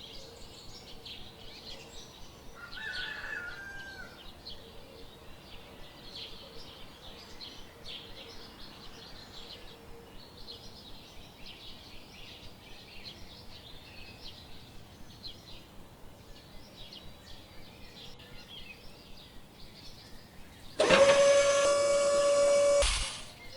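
Faint, rapid chirping of birds or insects in the background. About three seconds from the end, a small electric motor starts with a loud, steady high whine, runs for about two seconds, and cuts off suddenly.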